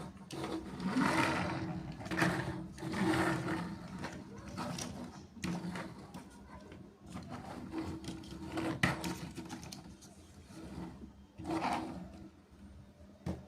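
Plastic toy construction vehicles being handled and played with: repeated plastic clatter over a steady buzzing hum, growing quieter near the end.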